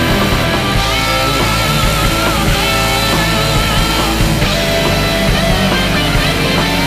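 Loud rock music with guitar playing lead lines that bend in pitch over a steady low backing.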